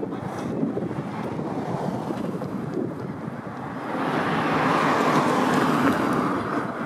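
Wind rumbling on the microphone over steady street noise, growing louder about four seconds in.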